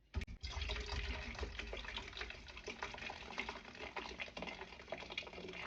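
Liquid being stirred in a bowl, with many small irregular clicks of a utensil against the sides.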